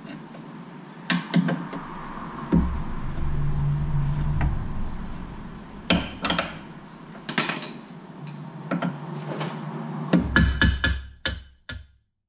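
Hand tools knocking and clanking on a front lower control arm and its mounting bolt as the bolt is driven back into alignment. Scattered single knocks are followed by a quick run of hammer strikes near the end.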